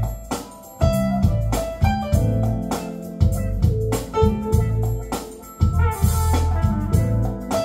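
Smooth jazz instrumental with keyboard, bass and a steady drum beat, played back through a Sonos wireless speaker for a sound test.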